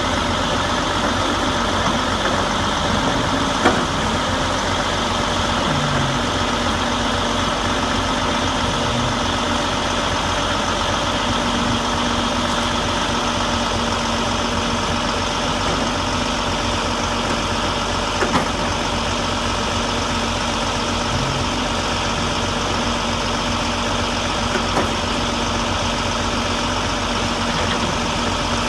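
Heavy diesel demolition machinery, an excavator with a dump truck standing by, running steadily. A few short sharp knocks from the house being broken apart come about 4, 18 and 25 seconds in.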